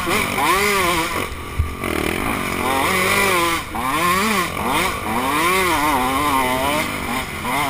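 KTM dirt bike engine being ridden hard, revving up and down several times as the rider works the throttle and gears, heard from the rider's helmet.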